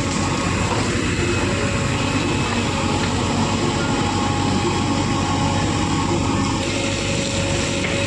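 JCB 3DX backhoe loader's diesel engine running steadily while the backhoe arm digs gravel.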